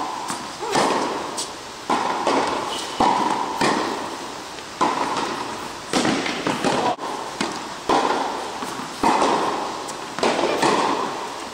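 Tennis balls struck by rackets and bouncing on the court in an indoor rally: sharp knocks about once a second, each followed by a long echo off the big hall.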